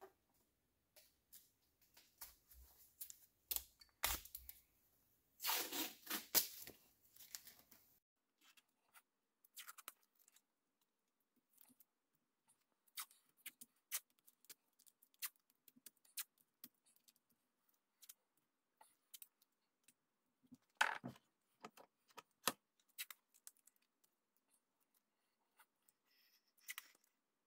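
Painter's tape pulled off the roll and torn in short rips, with small clicks and rustles as it is pressed onto a metal axe head. There are a few louder rips, one about six seconds in and another near twenty-one seconds.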